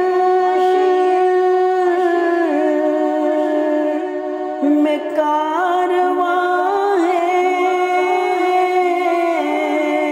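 A male reciter singing an Urdu salam (naat), drawing out long, wavering held notes between lines of the verse.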